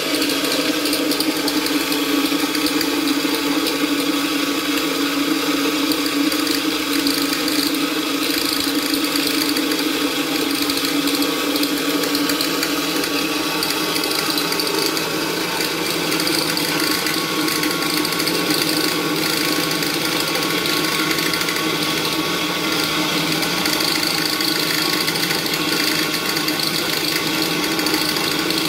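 Electric portable dry mill grinder running steadily, its steel plates grinding rice into flour: a continuous mechanical whir with a steady high whine over it.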